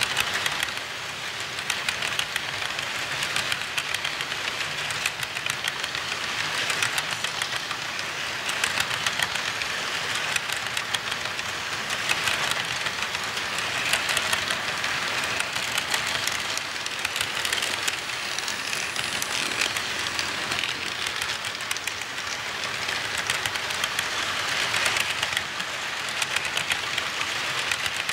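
HO scale model freight cars rolling past close by on the track: a steady rolling noise of the wheels, full of rapid small clicks.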